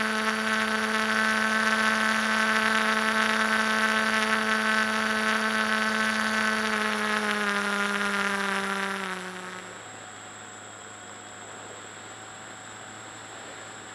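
The model airplane's motor and propeller run with a steady whine, then slow with a falling pitch and stop about ten seconds in. After that only a quieter steady hiss of air remains as the glider coasts.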